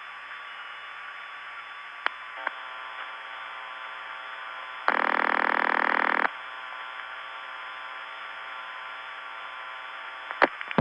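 Hissy long-distance telephone line with a couple of switching clicks about two seconds in. A single buzzy ringback tone sounds for about a second and a half around the middle. More clicks come near the end.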